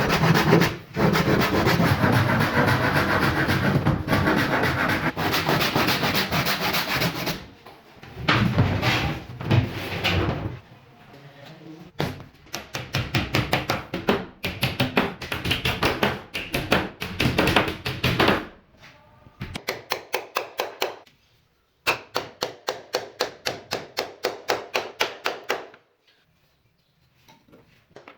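Woodworking tools at work on board: a loud steady tool noise for about seven seconds, then stop-start bursts, and in the second half runs of rapid, even knocking, about four strokes a second.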